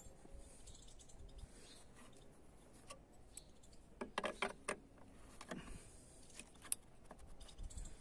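A few light metallic clicks and taps from a metal hand tool being fitted against the bolt of a BMW E36 door latch striker. They come in a short cluster about halfway through, with one sharper click near the end.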